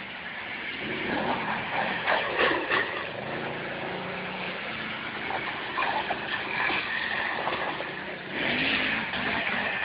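Quad ATV engines revving up and down as they climb a sand hill, the pitch rising and falling, with a few sharp knocks about two to three seconds in and the engines louder near the end.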